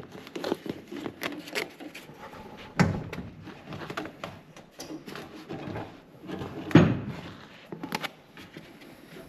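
Seat belt hardware being handled: a string of small clicks and rattles, with two louder knocks about three and seven seconds in.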